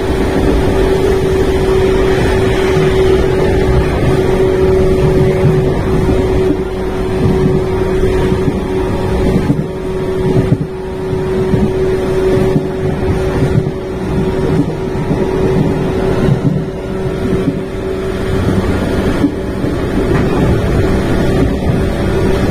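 JR West 115 series 3000-subseries electric train running at a steady speed, heard inside the car with the windows fully open: a steady whine of one pitch from the motors over a heavy rumble and rushing air, with a few clacks from the rail joints around the middle.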